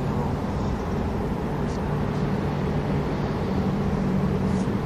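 Steady low drone of distant engines, with a faint humming tone running through it.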